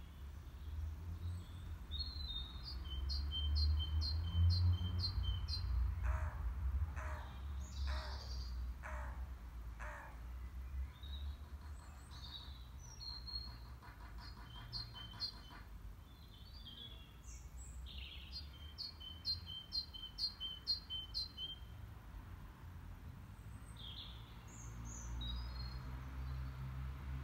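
Birdsong: a songbird twice sings a phrase of about seven quick, evenly spaced high notes, a few seconds in and again about two-thirds through, with scattered chirps between. About six seconds in come five harsh calls roughly a second apart. A steady low rumble lies underneath.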